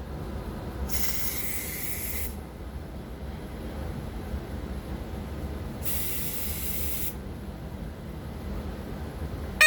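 An aerosol spray can sprayed in two hissing bursts of about a second each, roughly five seconds apart, to set off a vintage smoke detector. The detector's alarm comes on loudly right at the very end.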